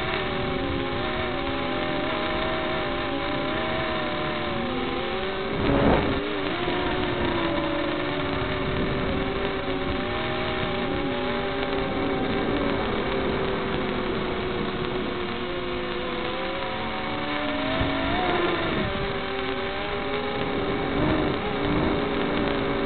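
Micro quadcopter's small brushed motors and propellers whining, the pitch wavering up and down with the throttle. A short thump about six seconds in.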